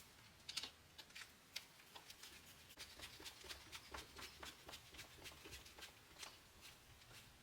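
Faint, irregular light clicks and taps, several a second, busiest from about two seconds in.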